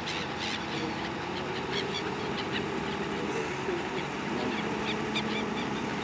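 New Holland T6.180 tractor's six-cylinder diesel engine running steadily under load while pulling a reversible plough through stubble. Gulls following the plough call over it in short, frequent cries.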